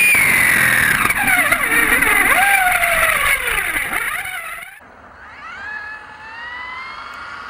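High-pitched electric drive whine from a Losi 5T electric conversion with a Lehner 3080 brushless motor. The whine is loud at speed, then sweeps down in pitch and wavers as the truck slows and runs off into grass. About five seconds in, the sound drops to a quieter, more distant whine that climbs steadily in pitch as the truck accelerates.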